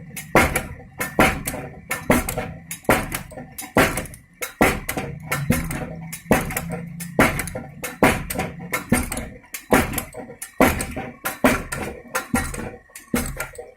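Motor-driven pounding machine knocking repeatedly, about one and a half strikes a second in a slightly uneven rhythm, over a low steady hum.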